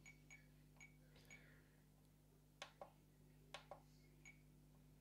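Faint clicks and short ticks from the buttons of a Radiomaster Boxer radio transmitter, pressed at an irregular pace while stepping through its menu. The sharpest clicks come in two pairs about a second apart, past the middle, over a faint steady hum.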